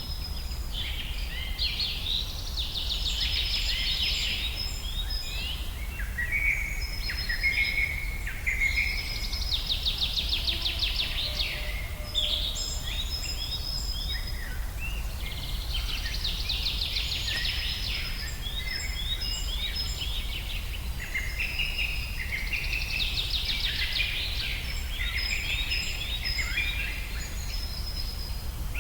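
Several birds singing in a forest: overlapping chirps and whistles, with a rapid trill of about two seconds recurring every six or seven seconds, over a steady low rumble.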